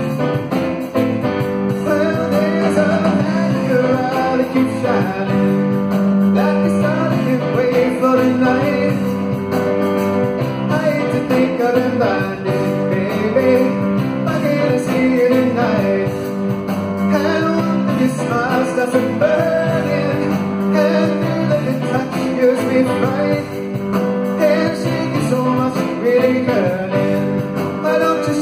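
Live rock band playing a song through a PA: drum kit, electric guitars and keyboard in a full, steady groove.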